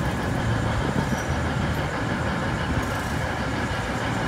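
V/Line VLocity diesel multiple unit standing at the platform, its diesel engines running steadily.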